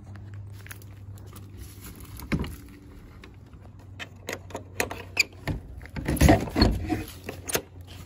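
A run of irregular clicks, taps and rustling knocks over a steady low hum, sparse at first and densest and loudest about six to seven seconds in.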